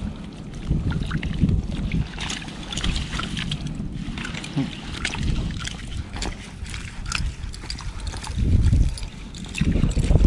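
Water splashing and sloshing in many small, irregular splashes, with wind rumbling on the microphone, loudest near the end.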